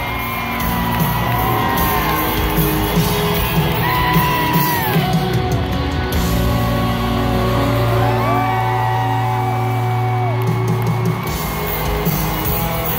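Live country band playing in a large arena, with long held notes bending up and down over a steady low bass. Crowd whooping and yelling along.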